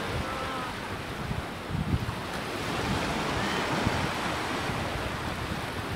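Sea surf breaking and washing onto the beach in a steady rushing wash, with wind rumbling on the microphone.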